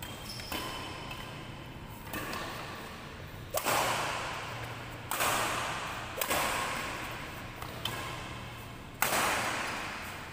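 Badminton rackets striking a shuttlecock in a doubles rally: a string of sharp hits at an uneven pace of about one every second or so. Each hit is followed by a fading echo.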